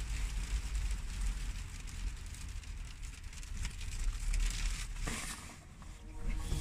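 Rain pattering on the roof and windshield of a parked van, many small drop ticks over a low steady rumble. Clothing rustles briefly near the end.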